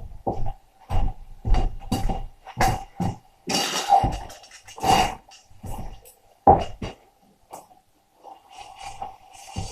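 Irregular knocks and clatter of hard objects being struck or handled, a dozen or so hits in the first seven seconds, then only a few faint ones, over a faint steady hum.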